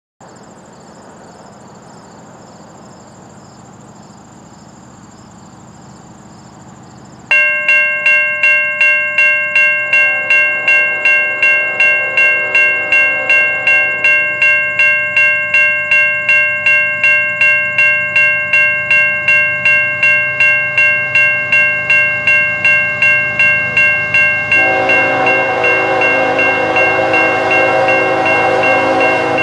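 A railway crossing bell starts suddenly about seven seconds in and rings on at about two strokes a second. Over it the approaching CN ES44AC GEVO locomotive sounds its horn around ten seconds in and again, louder, from about twenty-five seconds, with the low rumble of the heavy train growing.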